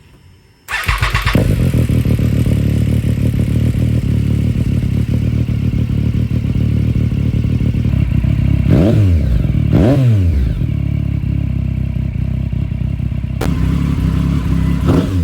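2013 Triumph Street Triple R's 675cc inline-three engine, fitted with a Black Widow slip-on exhaust, starting up about a second in and idling. It is revved and let fall back twice around the middle, with another blip near the end.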